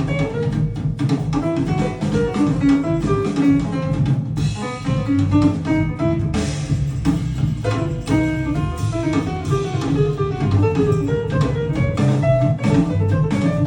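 Instrumental music with guitar, bass and drums, played back through Cabasse Minorca MC40 bookshelf speakers.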